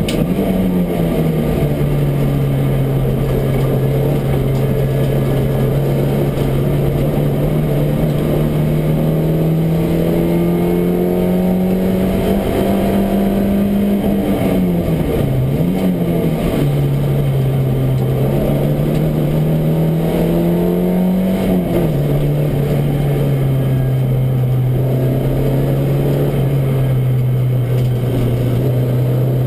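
Race car's engine heard from inside the cockpit, running hard under load, its pitch creeping slowly upward. About halfway through it dips and climbs again as the driver lifts for a corner, and about two-thirds in it drops and then holds steady at a lower pitch.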